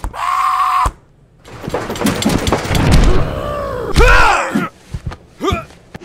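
Animated fight-scene soundtrack: cartoon characters' wordless yells and grunts. About a second and a half in comes a dense, noisy stretch of rapid rustling hits, and a loud cry follows about four seconds in.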